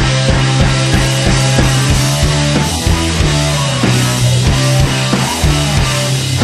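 Loud rock music with a steady drum beat over a sustained bass line.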